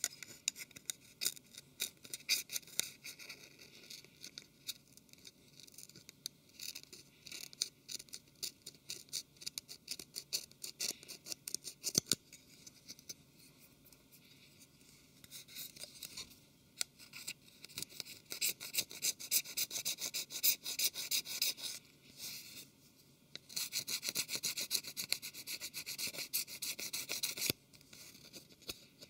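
A thin metal pick scraping leftover screen adhesive off a Samsung Galaxy Ace's metal mid-frame: rapid fine scratching in runs of several seconds, with short pauses between.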